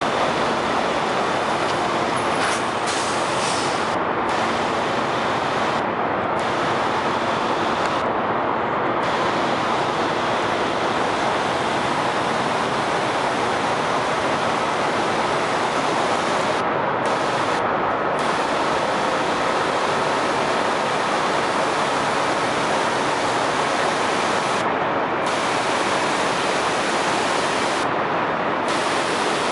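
Semi-trucks driving through deep floodwater: a steady, loud rushing wash of water with the trucks running under it.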